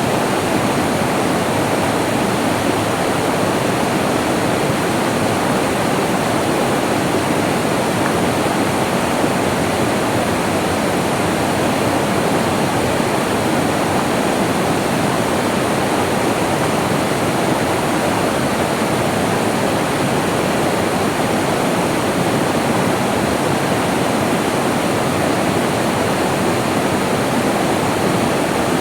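Flowing water rushing steadily, a full, even sound with no breaks or single splashes.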